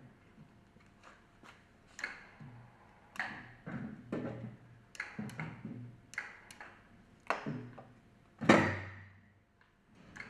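Scattered metallic clinks and knocks, about nine in all, from tools and steel pump parts being handled while a centrifugal pump's casing is put back together. The loudest is a sharp ringing knock about eight and a half seconds in.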